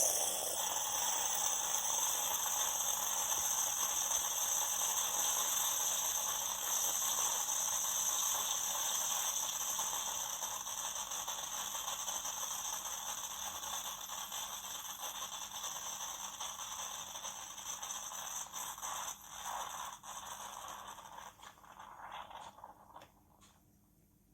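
Tassimo pod coffee machine brewing: its pump runs steadily, pushing hot water through the pod with a hissing, mechanical sound. The sound slowly fades and stops about two seconds before the end, followed by a few faint clicks.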